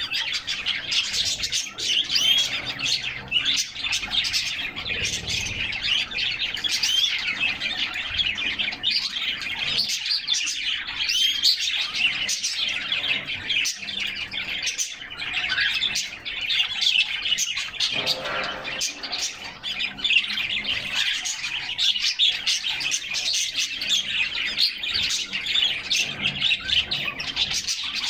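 Several canaries singing and chirping at once: a dense, continuous stream of quick high chirps and warbling notes.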